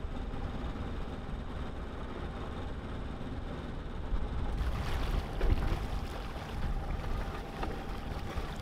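Water rushing along the hull of a small sailboat under way while motor sailing, with wind buffeting the microphone. The rush of water gets louder and brighter about halfway through.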